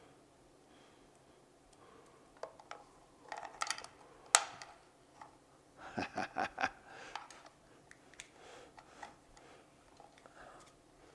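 Gloved hands handling an electric motorbike's wiring harness and motor controller: scattered light clicks and rustles of plastic connectors and wires. The sharpest click comes about four seconds in, and a quick run of clicks follows around six seconds in.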